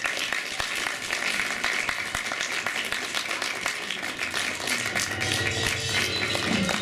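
Audience applauding, a dense patter of many hands clapping, with music playing underneath; a lower pitched part of the music comes in about five seconds in.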